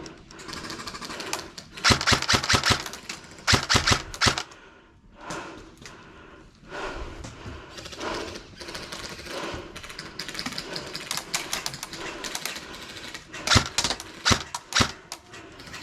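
Airsoft guns firing rapid bursts of sharp clicking shots. There are two bursts a couple of seconds in, quieter scattered shots after them, and another burst near the end.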